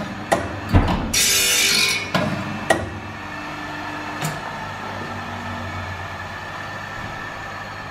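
OSW-5M carbide saw blade sharpening machine grinding one pass across a carbide tooth: a hissing grind for about a second, with sharp clicks and a heavy thump from the handle and indexing mechanism. The motor then runs on steadily with a hum.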